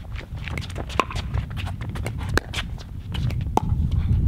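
Pickleball paddles striking a hollow plastic ball in a quick exchange at the net, a sharp pop about every second and a quarter, over a steady low rumble.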